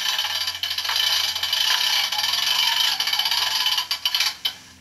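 Sound decoder of an OO gauge NIR class 111 diesel locomotive model playing a loud hiss mixed with rattling over a faint low hum; the hiss cuts off suddenly near the end while the hum carries on.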